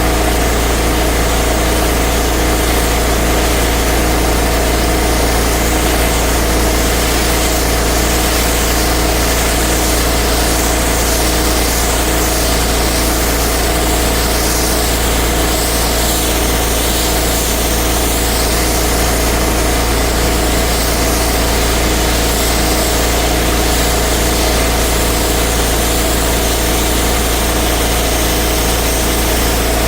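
A pressure washer's engine running steadily at constant speed.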